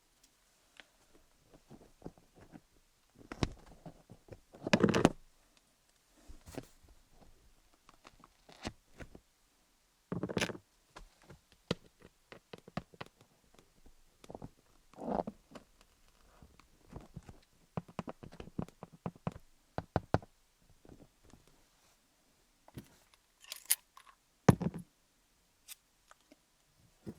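Wooden picks tapping and scraping over a dummy head studded with rhinestones, an ASMR trigger: irregular small clicks and scratches, with a few louder strokes about 5, 10, 15 and 24 seconds in.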